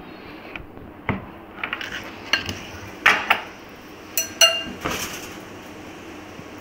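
A glass bowl and a knife knocking and clinking on a kitchen counter: a run of about a dozen sharp clinks, two of them, a little after four seconds, ringing briefly.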